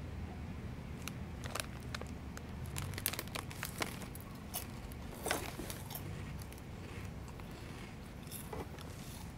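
Foil bag of potato chips crinkling in someone's hand, with irregular crackles and crunches as the chips are taken and eaten, over a low steady room hum.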